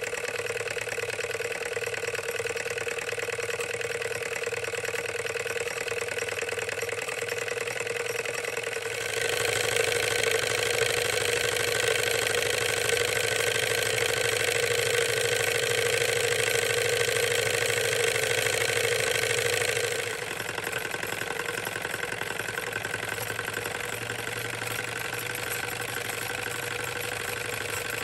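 Bing 9635/1 antique toy hot air engine, with a cast-iron machine part, running steadily. Its flywheel drives a small tin beet cutter through a string belt, making a fast, even mechanical running sound that is louder for about ten seconds in the middle.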